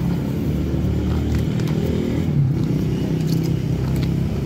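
A motor runs with a steady, even low hum, with a few faint high clicks over it.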